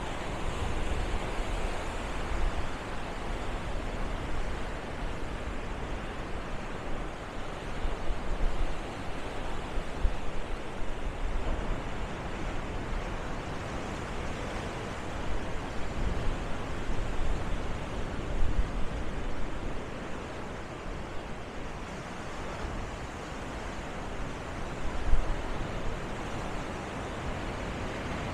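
Steady rush of surf breaking on the beach, with wind buffeting the microphone in irregular low gusts, the strongest about 25 seconds in.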